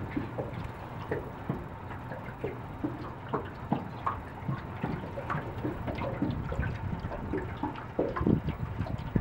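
Water lapping and slapping close by against the side of a small boat, a run of small irregular plops and drips over a low, steady rumble.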